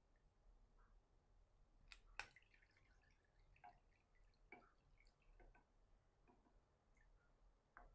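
Faint water drips and light clicks as bitter melon slices are scooped with a wooden spoon out of a bowl of cold water into a wire strainer. There are about seven scattered drips, the loudest two close together about two seconds in.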